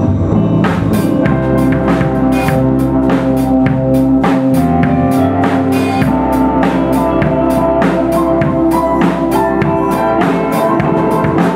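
Music with a drum-kit beat over held chords; the drums come in about half a second in and keep a steady rhythm.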